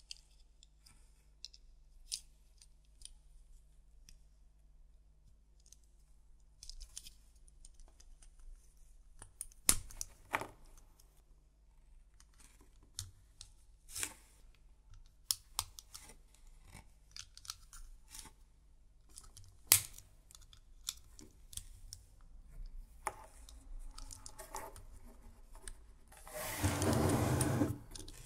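Plastic LEGO bricks, axles and gears clicking and tapping as they are handled and pressed together, with a louder rubbing noise lasting about a second and a half near the end.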